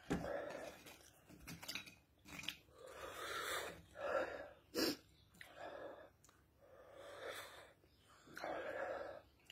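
A man chewing dry, chilli-hot corn chips while breathing out hard through his mouth in regular puffs about every second and a half against the chilli burn. A sharp click or crunch a little under five seconds in.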